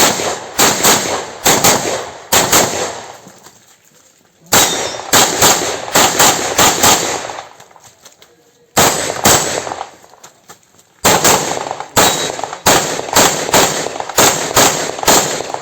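Handgun fired in quick strings of several shots each. Short pauses of one to two seconds fall between the strings.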